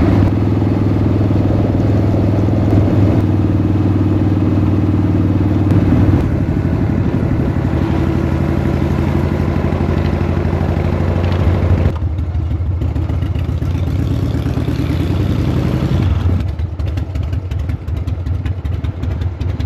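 Motorcycle engine running steadily while being ridden. Its note eases off about twelve seconds in and drops again around sixteen seconds.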